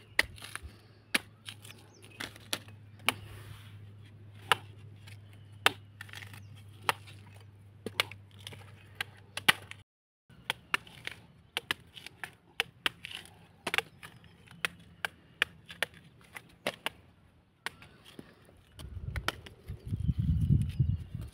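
Long-bladed knife chopping into palmyra palm fruits to split them open: sharp, separate chops, roughly one a second, with a brief break about ten seconds in. Near the end a louder low rumble rises under the chops.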